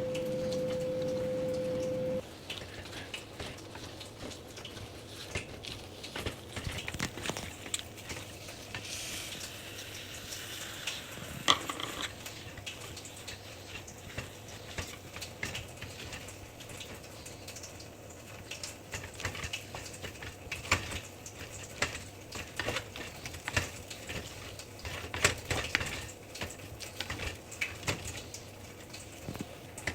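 A utensil scraping and knocking against a pot as thick gari (cassava) dough is stirred and worked into a paste, in irregular clicks and scrapes. A steady tone at the start cuts off about two seconds in, and there is a short hiss around ten seconds in.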